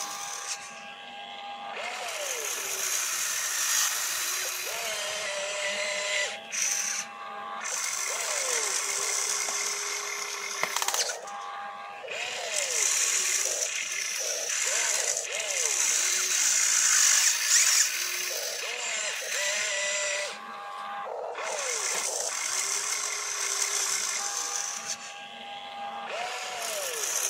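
RC excavator's electric motors and gearboxes whining as the boom, arm and bucket move, the pitch rising and falling with each movement and sometimes holding steady, with a gear hiss over it.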